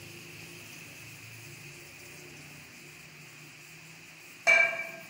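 Sliced onions frying in oil in an aluminium karahi, a faint steady sizzle, as more oil is poured in. About four and a half seconds in, a sharp metallic clang of cookware rings briefly.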